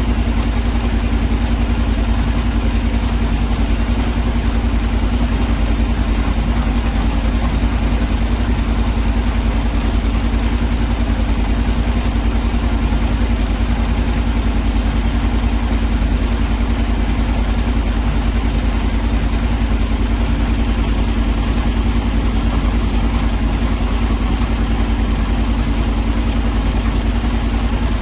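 Honda NC750X parallel-twin engine idling steadily, with the noise the owner traces to the front sprocket.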